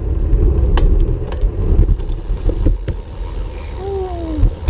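Wind rumbling on the microphone of a bicycle being ridden, with a few sharp clicks and a short tone that falls in pitch near the end.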